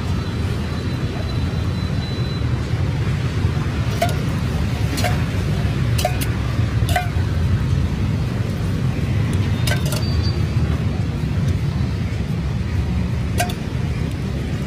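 Metal spatula clinking against a flat iron dosa griddle: about seven sharp, briefly ringing taps spread through the middle, over a steady low rumble.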